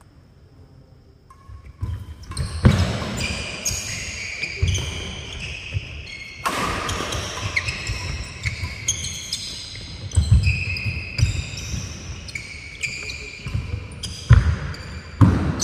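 A doubles badminton rally on a wooden court. Many short, high squeaks of players' shoes on the floor run through it, with sharp smacks of rackets hitting the shuttlecock and heavy footfalls from lunges. The rally starts about a second and a half in, and the loudest thuds come near the end.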